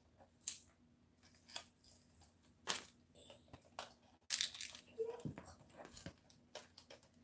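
Self-adhesive diamond wrap ribbon being handled and pressed around a round clock form: faint, scattered crinkles, clicks and rustles of plastic rhinestone mesh and its backing, with a few sharper ticks.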